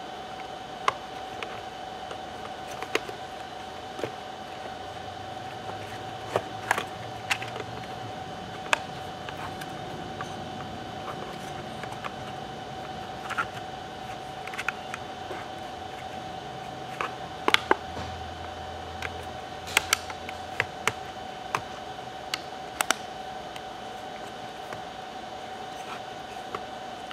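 Sporadic sharp clicks and taps of small laptop parts and tools being handled, over a steady hum.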